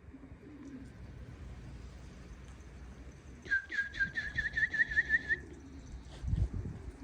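Domestic pigeons cooing softly. Midway, a quick run of about nine short rising whistled notes lasts about two seconds, and a low rustling starts near the end.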